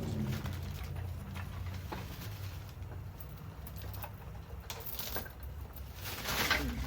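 Faint, scattered clicks and taps of tools and parts being handled during engine disassembly, over a steady low hum. A small cluster of clicks comes near the end.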